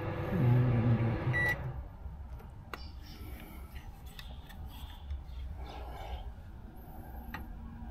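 1150-watt microwave oven running with a steady hum. A single beep sounds about a second and a half in, and the hum cuts off just after it. A few faint clicks follow.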